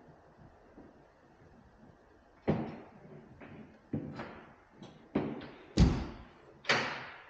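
A series of sharp bangs and knocks, about seven of them over the last five seconds, each dying away with a short ringing tail; the loudest comes near the end.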